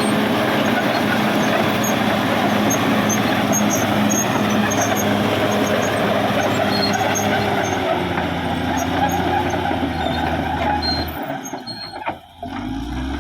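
Caterpillar D6R XL bulldozer's diesel engine running hard, a dense, steady mechanical din. The sound drops away sharply for a moment near the end, then comes back as a lower, steadier engine note.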